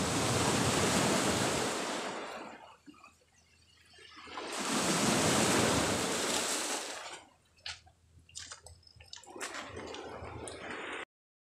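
Sea waves breaking and splashing at the shore, two waves a few seconds apart, each swelling up and washing away. Near the end come a few light clicks and a quieter wash before the sound cuts off suddenly.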